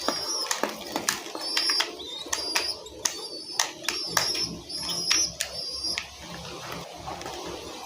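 A young bird chirping over and over in short, high, wavering peeps, with sharp clicks or taps mixed in; the peeps stop about six seconds in.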